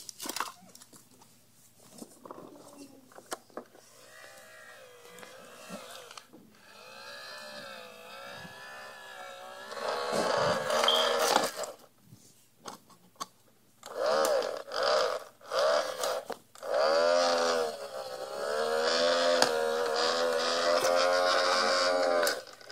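A voice making long, wavering engine-like noises for a toy garbage truck, louder in the second half, with scattered clicks of the plastic toy being handled.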